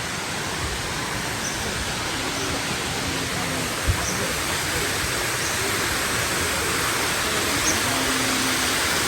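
Waterfall rushing steadily, its flow swollen by recent rain. A single soft knock comes about four seconds in.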